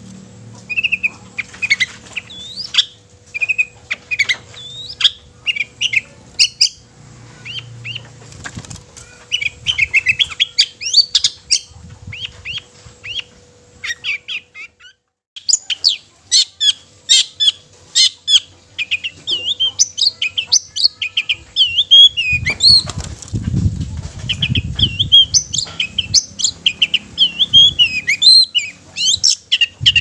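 Long-tailed shrike (cendet) singing: a long, vigorous run of short, sharp, varied high notes and chatters, pausing briefly a little past halfway, then denser. A low rumble sounds in the last quarter.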